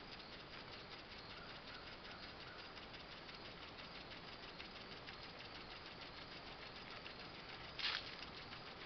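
Weeden No. 123 toy steam engine running, with a fast, even ticking chuff, and a short louder burst of noise about 8 seconds in.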